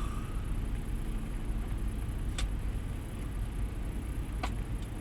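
Steady low rumble inside a parked semi truck's cab, with two light clicks about two seconds apart, the first roughly halfway through, as buttons on the truck's GPS unit are pressed.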